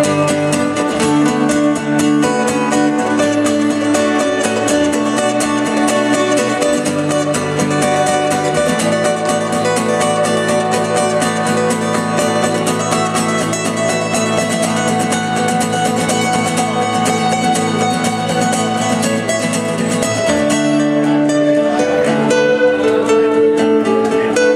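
Live acoustic band music: string instruments strummed in a fast, steady rhythm, playing an instrumental passage with no singing. The chords change about nine seconds in and again about twenty seconds in.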